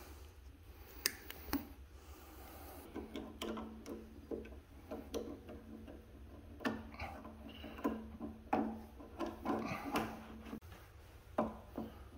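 Irregular small clicks and taps of wires and a screwdriver being worked at an air compressor's switch terminals during wiring, with a faint steady hum from about three seconds in.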